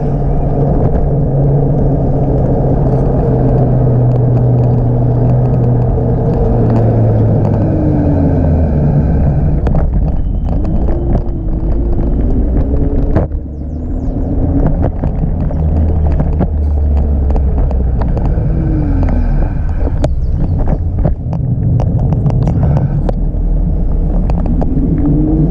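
Segway Ninebot Max G30LP electric scooter being ridden: a steady rumble with a pitched hum that slides down and back up several times, and scattered small knocks. The level dips briefly about halfway through.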